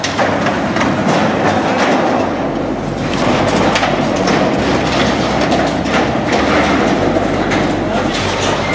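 Heavy demolition machine working against a steel silo structure: a continuous mechanical din with dense clanking and rattling of metal.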